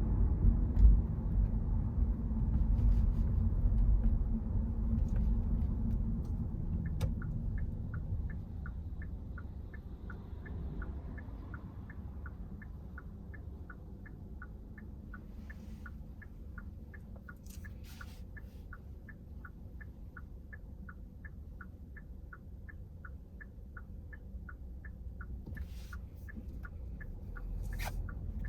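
A car's turn-signal indicator ticking evenly, about two clicks a second, starting about seven seconds in. Under it, low engine and road rumble fades as the car slows. A few brief scratchy sounds come in the second half.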